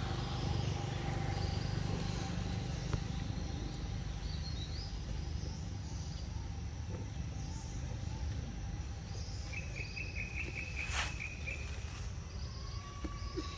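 Outdoor woodland ambience over a low steady rumble: insects buzz and birds call. About ten seconds in, a rapid trill of high chirps lasts a second or two, and a single sharp click falls near its end.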